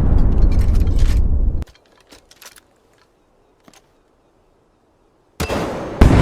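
Loud rumbling explosion-type sound effect that cuts off abruptly about a second and a half in, followed by a few faint clicks and near silence, then another loud noisy burst starting near the end.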